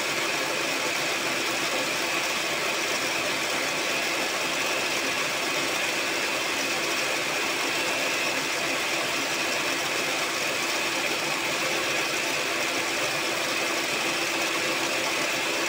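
Electric hand mixer running at a steady speed, whipping a bowl of eggs and sugar.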